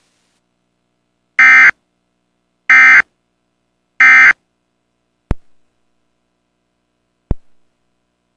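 Emergency Alert System end-of-message signal: three short, loud bursts of digital data squawk about a second and a quarter apart, marking the end of the alert. Two sharp clicks follow.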